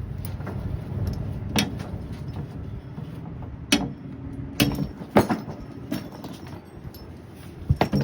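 Wind rumbling on the microphone, with about six sharp clicks and knocks of metal spread irregularly through it, the loudest two together near the end.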